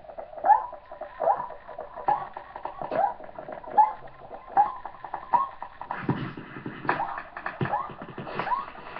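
Beatboxing into a handheld microphone: a repeating rising chirp about every 0.8 s over sharp clicks and ticks, with a deep kick-drum bass joining about six seconds in.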